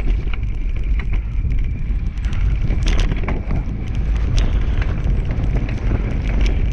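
Two-dog dryland scooter rolling fast over a dirt trail strewn with leaves and twigs, pulled by the dog team. It makes a steady low rumble with scattered clicks and rattles.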